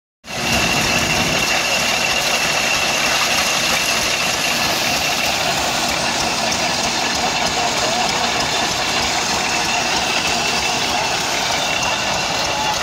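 Eureka Ironsides two-hole portable corn sheller running, powered by a 6 HP IHC M stationary engine: a loud, steady mechanical clatter with a thin high whine over it.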